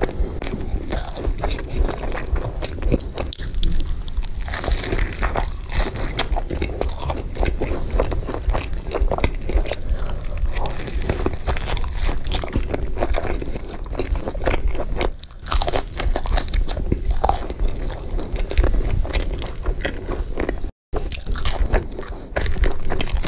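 Close-miked mukbang eating sounds: loud, repeated crunching bites and wet chewing of crispy fried fast food.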